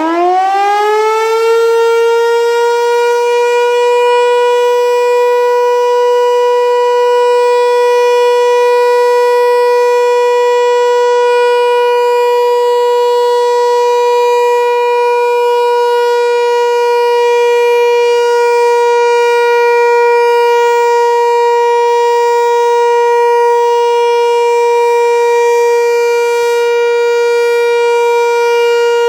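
Hörmann HLS 373 high-performance civil-defence siren winding up over the first couple of seconds to one long, steady, loud tone, the continuous all-clear signal. Right at the end its pitch starts to sag as the siren loses speed.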